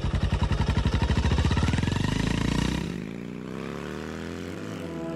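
Motorcycle engine idling with a steady, rapid putter of about ten beats a second, fading away about three seconds in.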